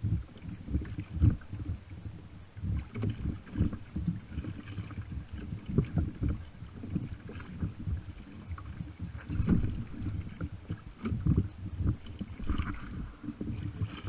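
Small waves slapping and sloshing against a kayak's hull right by the microphone, in uneven low thuds, with some wind on the microphone.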